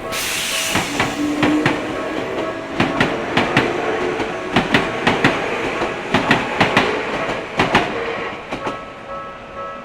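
Commuter train passing close by, its wheels clacking over the rail joints. A rush of noise starts suddenly at the beginning, then a long series of uneven knocks fades out near the end.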